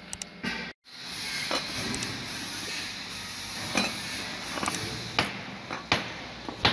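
Small cut stainless-steel plates being slid and set down on a workbench by hand, with a handful of sharp metal clinks and knocks over a steady hiss.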